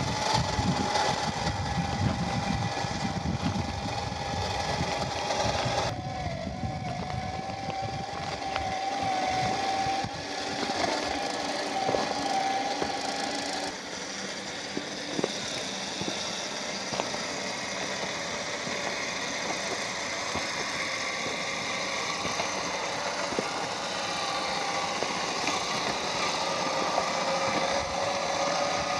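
Radio-controlled TRX4 rock crawler driving, its 550-size 21-turn brushed motor and geared drivetrain giving a steady whine that changes pitch a few times as the throttle varies. Scattered knocks and clicks come from the chassis and tyres working over the ground, with heavier rumble in the first few seconds.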